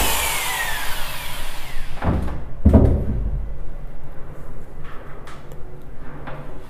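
Electric hand drill spinning down after boring a pilot hole for a hinge screw, its whine falling away over the first two seconds. Then two knocks, about two seconds in, and a few light clicks later as the metal hinge and wooden door are handled.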